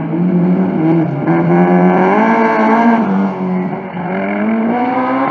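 Rally car engine revving hard under acceleration. Its pitch climbs, sags for a moment about three seconds in, then climbs again.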